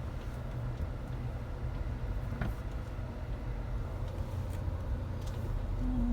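Car interior noise while driving slowly: a steady low rumble of engine and tyres, with a few faint ticks.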